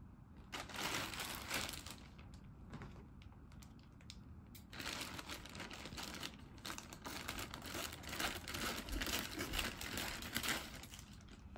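Plastic mailer bag crinkling as it is handled and cut open with scissors. The crinkling becomes busier and louder about halfway through.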